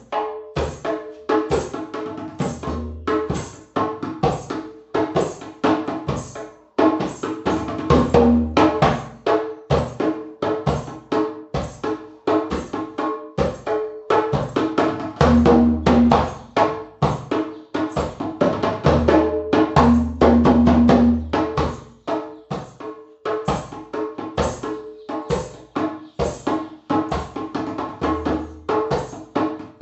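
Music with fast, busy percussion strikes over repeated mid-pitched notes, and a deep bass that comes in for a second or so at a time, several times.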